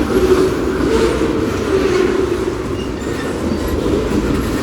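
Norfolk Southern manifest freight train's cars rolling past: a steady rumble and rattle of steel wheels on the rails.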